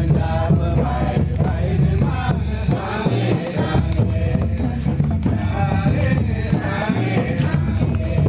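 A crowd of villagers singing a devotional song together as they walk, with hand-beaten double-headed barrel drums (mandar) keeping a steady rhythm underneath.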